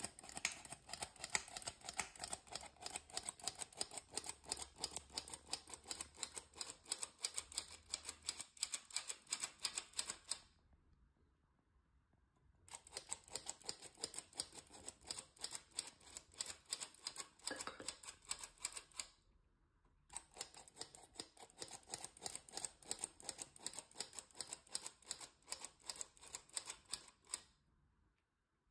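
Hand-crank flour sifter being turned, its rotating wires rasping flour through the mesh in rapid clicks. The clicking comes in three bouts, with short pauses near the middle and toward the end.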